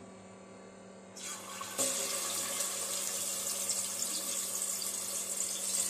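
Chicken pieces frying in hot oil in a deep pot, the oil sizzling. The sizzle starts about a second in as the first pieces go in, grows stronger just before two seconds, then holds steady.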